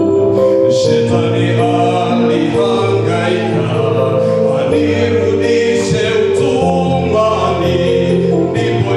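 A man singing a Swahili gospel song into a microphone, backed by an electronic keyboard playing sustained chords, amplified through PA speakers.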